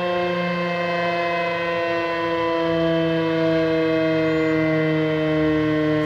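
Federal Signal Thunderbeam electronic outdoor warning siren sounding a steady tone during its monthly test. The tone sinks very slightly in pitch and its loudness swells gently as the speaker turns.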